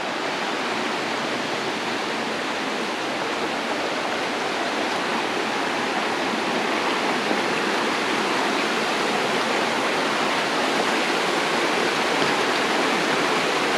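Shallow rocky stream running over stones, a steady rush of water that grows gradually a little louder.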